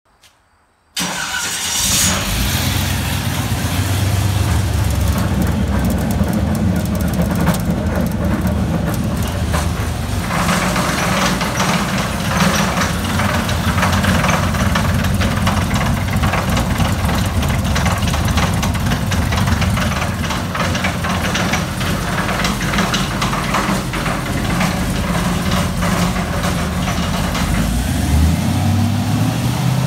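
Stage 4 rebuilt 6.0-liter LQ9 V8 with a VCM cam starting about a second in on an engine dyno cart, then running steadily, with a change in its note near the end.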